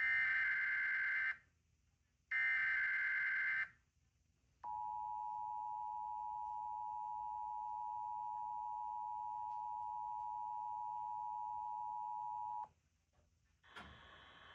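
Emergency Alert System required monthly test: the last two of three SAME header data bursts, each about a second and a half long with a second's gap, then the EAS two-tone attention signal held steady for about eight seconds before cutting off.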